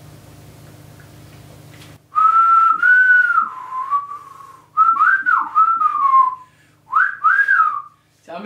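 A man whistling through pursed lips, no fingers: a wavering tune in three phrases whose pitch glides up and down, starting about two seconds in. A low steady hum is heard before the whistling starts.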